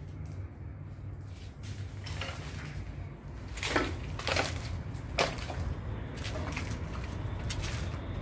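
Footsteps crunching on dry leaves and debris, a handful of irregular crunches from about two seconds in, over a low steady rumble.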